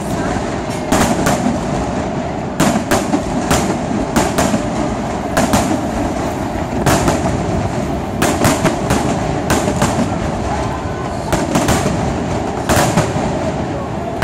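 Aerial fireworks going off: sharp bangs and crackles in quick, irregular clusters, several to a second at times, over a continuous rumbling background.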